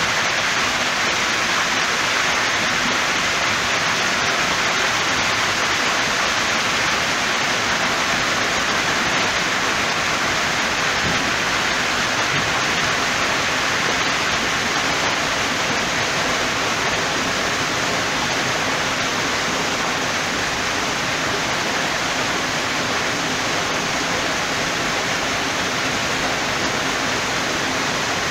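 Water pouring over the top of a dry dock gate in a steady, unbroken rush as the dock is flooded around a narrowboat.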